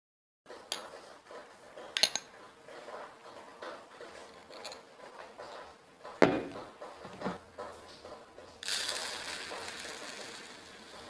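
Kitchenware clinking a few times, then a plastic mixing bowl knocked down onto the counter about six seconds in. Near the end, dry breadcrumbs pour into the plastic bowl with a steady hiss.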